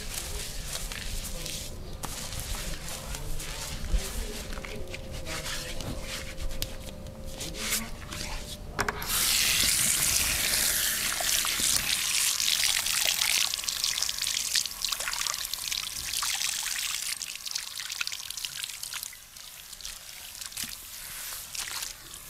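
Running water, starting suddenly about nine seconds in as a steady hiss and thinning out a few seconds before the end; before it, soft handling noises.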